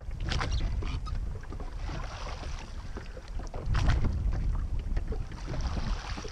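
Oars of a wooden rowboat dipping and pulling through lake water, a splashing swish with each stroke about every two seconds, over a low rumble of wind on the microphone.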